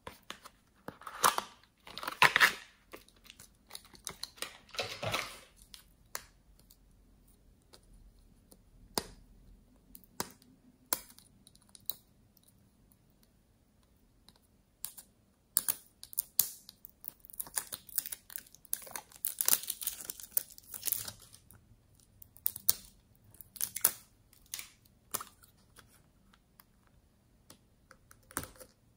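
Close hand-handling sounds: stickers peeled off a plastic sticker sheet with short crackling tears, then scattered clicks, taps and crinkles from small plastic lipstick tubes being opened and handled. The sounds come in quick bursts with quiet gaps between, busiest in the second half.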